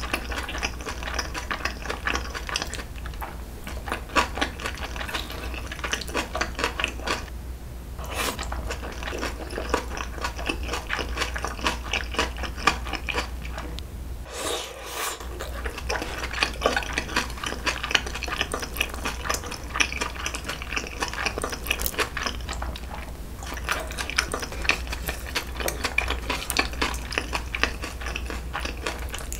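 Close-miked eating sounds: steady, wet chewing of soft, sticky jokbal (braised pig's trotters) and noodles, with small clicks of chopsticks against the dishes. There is a brief lull about halfway through.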